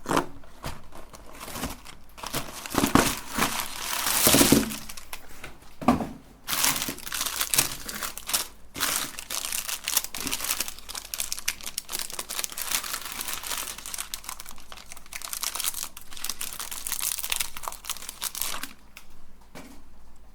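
Plastic wrapper crinkling and tearing as it is handled and pulled open, an irregular crackle that keeps going for most of the stretch and is loudest in the first few seconds.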